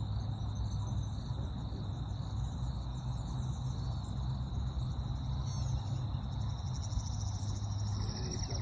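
Steady high-pitched chorus of insects chirping at dusk over a low rumble, with a few faint high chirps near the end.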